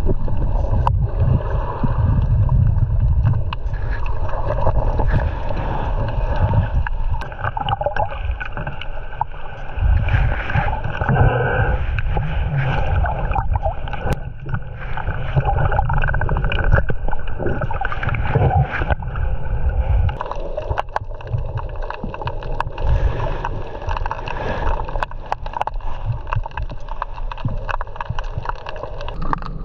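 Moving water sloshing and gurgling, with a strong low rumble and many small splashes and clicks throughout.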